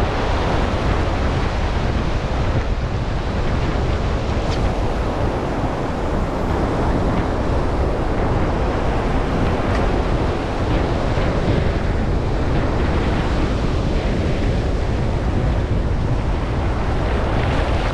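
Surf washing in at the water's edge, with wind buffeting the microphone: a steady rushing noise, heaviest in the low rumble.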